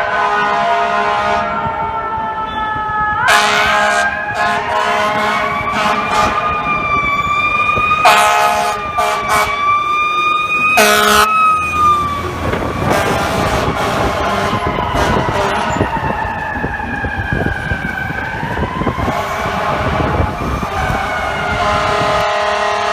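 Fire engine siren wailing, its pitch rising and falling slowly throughout, cut through by short air-horn blasts about three seconds in, around eight seconds and around eleven seconds. Engine and traffic rumble sits underneath in the second half.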